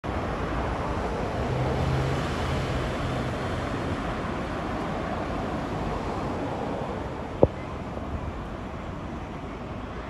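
Steady road traffic on a multi-lane city street, cars and trucks driving past, with a low engine drone between about one and a half and four seconds in. A single sharp click sounds about seven and a half seconds in.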